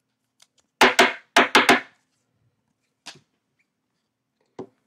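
Five quick, sharp knocks on a hard surface within about a second, followed by two fainter clicks later on.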